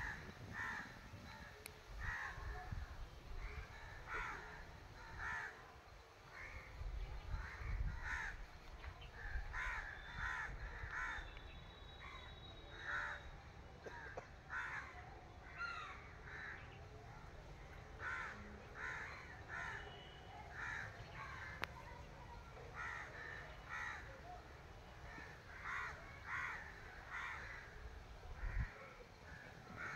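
Birds calling in short repeated calls, often several in quick succession.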